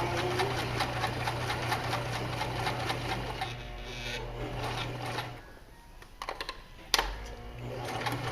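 Janome HD1000 sewing machine running a straight stitch with rapid, even ticking. It stops a little past halfway, a single sharp click comes about a second and a half later, and the machine starts up again near the end.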